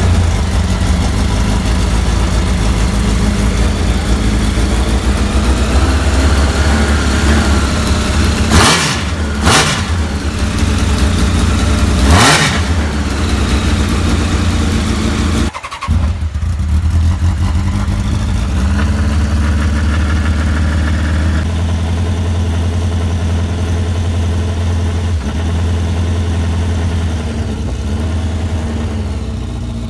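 Honda CBR1000 motorcycle inline-four in a Lotus 7-style car running at idle, blipped in three quick, sharp revs between about nine and twelve seconds in. After a short break it idles steadily again.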